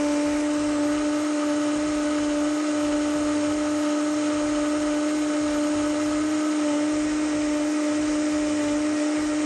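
Vitamix blender motor running steadily on high: a constant whine over a rushing hiss. The tone holds at one pitch, as the strawberry, banana, orange juice and ice smoothie in the jar is already blended smooth.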